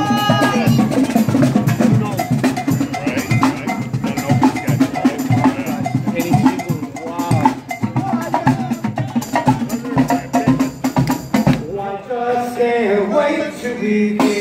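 Brass marching band playing an up-tempo number with busy percussion. The horns drop out for a stretch of drumming and percussion, then come back in near the end.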